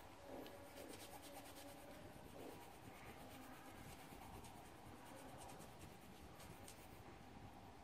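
Near silence: faint, irregular scratching like a coloured pencil rubbing on paper, over a faint steady hum.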